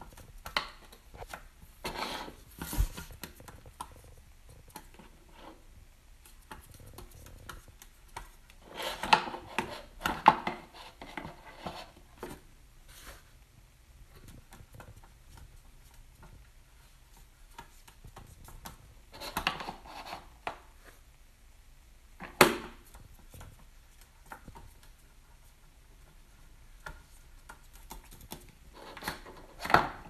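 A Senegal parrot moving about on a hard tabletop and handling a small plastic pedal bin: scattered light taps and clicks, broken by a few short bursts of clattering and rustling, with one sharp clack a little past the middle.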